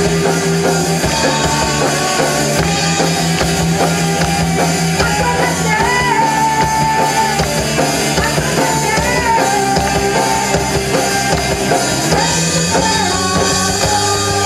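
Rock band playing live: a woman sings over electric guitars and a drum kit, holding a long sung note about six seconds in.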